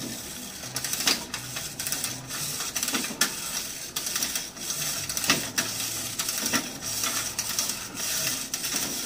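Built-in winding key of a 1960s Marx tin clockwork toy (Honeymoon Express) being turned to wind the spring, with irregular ratcheting clicks and mechanical rattle.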